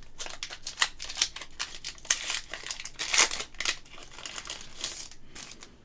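Foil booster-pack wrapper crinkling and tearing as it is ripped open, a dense run of crackles with a few louder ones around two and three seconds in.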